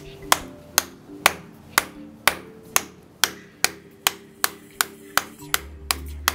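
A hammer striking the vest's plastic buckle over and over as a durability test: about fifteen sharp knocks, speeding up from about two to about three a second.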